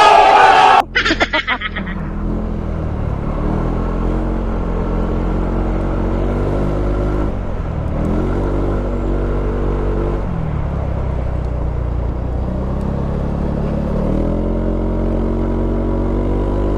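A loud yell in the first second, then a Yamaha Aerox 155 scooter's single-cylinder engine pulling hard up a climb. Its pitch rises and holds steady, drops twice and rises again.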